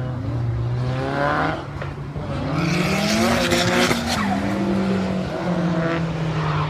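Drift car engine revving up and down as the car slides through a corner, with tyres squealing loudest about three to four seconds in.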